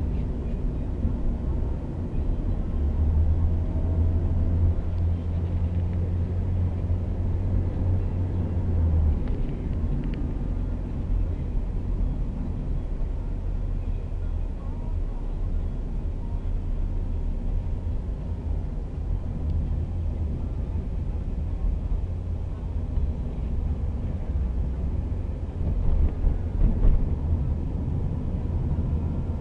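Taxi's engine and tyre rumble heard from inside the cabin while driving through city traffic: a steady low drone that swells slightly for a few seconds near the start.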